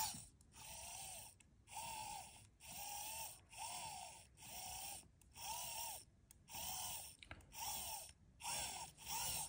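3D-printed spooler gear train whirring as its shaft is twisted back and forth by hand, about ten short whirs roughly a second apart, each rising and falling in pitch. The gears are meshed and spinning freely.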